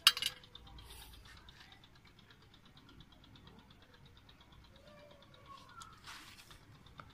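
A sharp clink of metal kitchenware at the start, then faint handling sounds as soaked tamarind pulp and seeds are picked off a slotted metal spoon over an aluminium pan.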